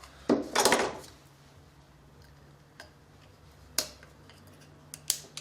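Sharp metal clicks of a steel circlip being worked onto a shaft with circlip pliers: a quick cluster of clicks about half a second in, then a single click near four seconds and two more near the end.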